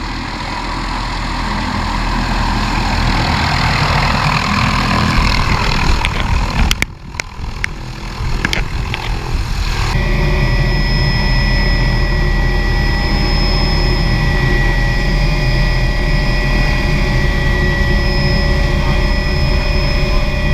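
Small helicopter's rotor and engine running. At first it is heard from outside as the helicopter comes in over the clearing. After a brief dip with a few knocks about seven to ten seconds in, it is heard from inside the cabin, running steadily with a high whine.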